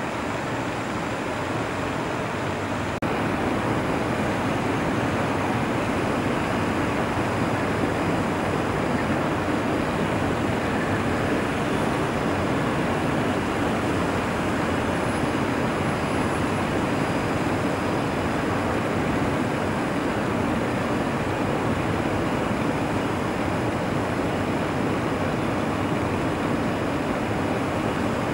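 Steady distant roar of city traffic with airport background noise, an even rumble with no distinct events. It grows a little louder about three seconds in.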